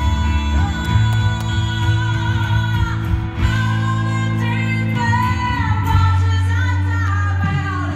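A woman singing a pop song into a microphone over backing music with a steady bass line, amplified through a PA. She holds long notes with vibrato.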